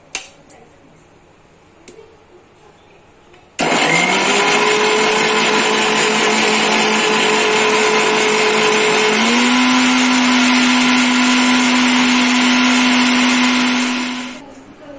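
Prestige electric mixer grinder (mixie) switching on about three and a half seconds in and running at full speed, grinding grated coconut, cardamom and cumin with a little water into a wet paste. Its motor hum steps up in pitch about halfway through, and it winds down just before the end.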